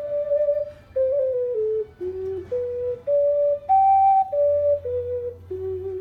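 Clay Songbird ocarina played as a slow melody of single pure, held notes that step down and back up, with the highest and loudest note about four seconds in and a longer low note held at the end.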